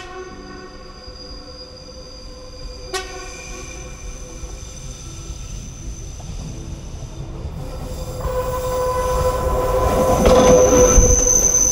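Diesel railcar of the Diakopto–Kalavryta rack railway approaching along the track. It gives one short horn toot about three seconds in, then its rumble and a steady whine grow louder as it comes close, loudest near the end.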